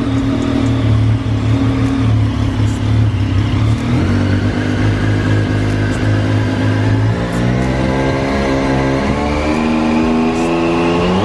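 Triumph Street Triple 765's three-cylinder engine running at a steady fast idle, stepping up in revs about four seconds in, then revved with the pitch climbing steadily over the last few seconds before dropping off sharply at the end.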